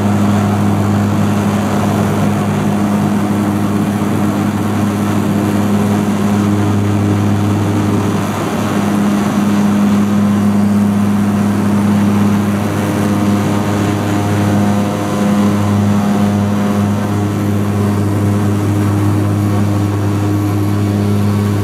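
Bombardier Dash 8 Q400's Pratt & Whitney PW150A turboprops and six-bladed propellers at takeoff power, heard from inside the cabin right beside the propeller. The drone is loud and steady with a deep hum, through the takeoff roll and liftoff.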